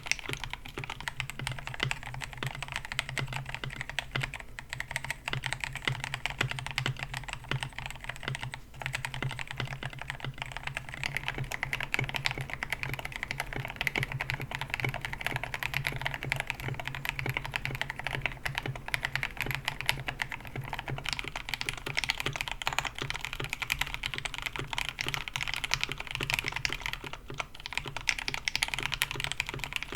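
Steady fast typing on a KBD67 Lite mechanical keyboard with Gateron Yellow KS-9 Pro linear switches on a polycarbonate plate: a dense stream of key clacks, with a brief lull about nine seconds in.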